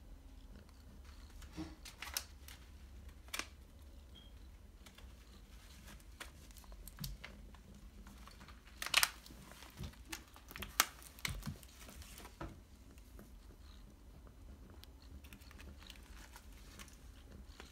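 Catnip packet crinkling and crackling in irregular bursts as kittens paw and bite at it, with the loudest crackles a little past the middle.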